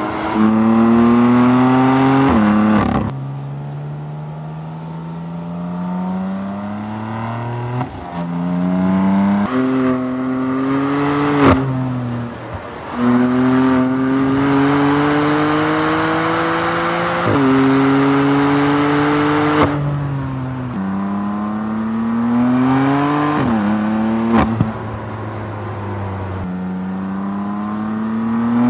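2014 BMW M3's twin-turbocharged inline-six accelerating hard through the gears. The engine note climbs and then drops sharply at each gear change, about a dozen times, with a few sharp cracks at some of the shifts.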